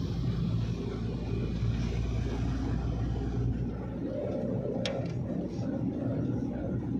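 A moving car's engine and road rumble heard from inside the cabin, steady throughout. A brief hum rises around four seconds in, and there is a single sharp click just before five seconds.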